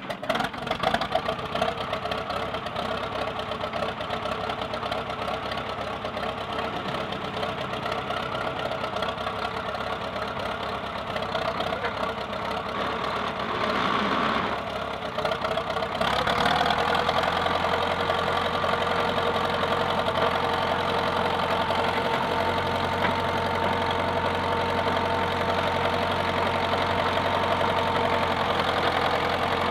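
Diesel engine of a vintage Caterpillar D4D crawler bulldozer running steadily as the machine moves. About halfway through the sound steps up into a deeper, steadier running note that holds to the end.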